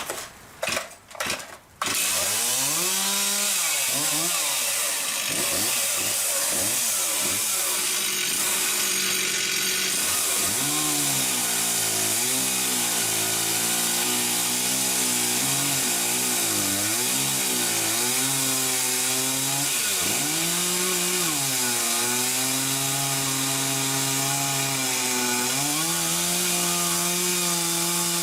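Chainsaw starting: a few short loud bursts, then the engine catches about two seconds in and runs on, its speed rising and falling again and again before holding steady near the end, as it is worked through a log on a homemade chainsaw mill.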